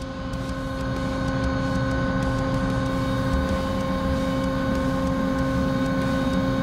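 CNC machining centre running with its spindle turning, a steady hum and whine that holds unchanged, while the HPX drill is being run into the steel plate.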